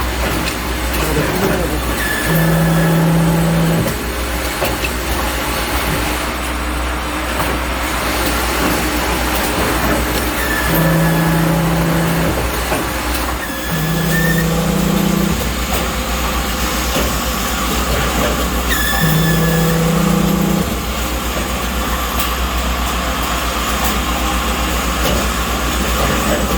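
Riveting machine working on an automated line over a steady low machine hum. A low drone comes on for a second or two every few seconds, once per riveting cycle, with a short faint chirp at the start of most cycles.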